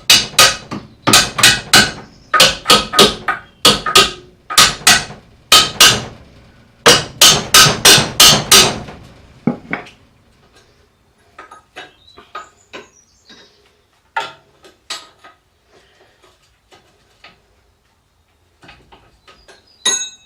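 Hammer blows striking in quick bursts of three or four, about twenty in all over nine seconds, to shock a seized shock absorber bolt loose; lighter scattered clinks of tools follow.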